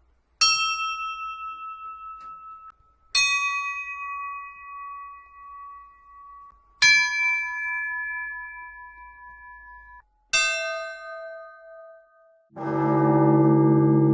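Church bells cast by the Drozdikhin bell workshop, struck one at a time. Four smaller bells ring out in turn, each lower in pitch and each left to decay. Near the end a much deeper, larger bell is struck and rings on.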